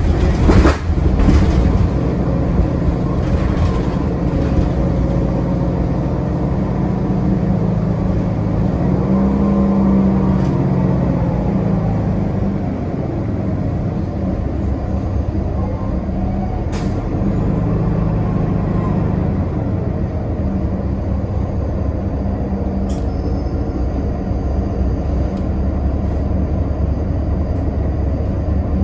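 Interior of a Nova Bus LFS articulated diesel city bus under way: the diesel engine drones steadily with road noise. There are a few knocks in the first couple of seconds, and the engine note swells briefly about ten seconds in.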